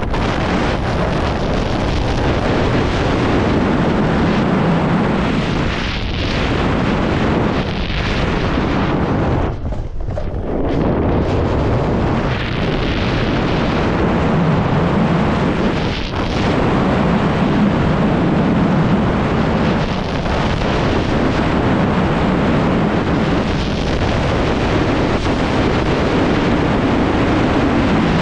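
Wind rushing over the microphone together with a snowboard's base and edges scraping over packed snow at speed: a steady, loud rush that eases briefly every few seconds, with a deeper lull about ten seconds in.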